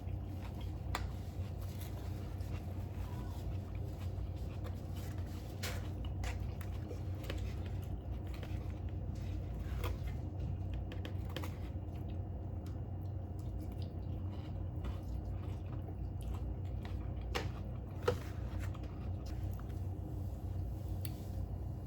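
Quiet eating: soft chewing and mouth sounds with a few sharp clicks, over a steady low hum.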